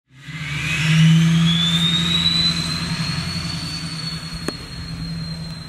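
LMM Duramax 6.6-litre V8 turbo diesel with a 68 mm turbo and 5-inch straight pipe: a loud, jet-like turbo whistle climbs in pitch over the first couple of seconds, then holds high over a steady diesel drone. It slowly fades.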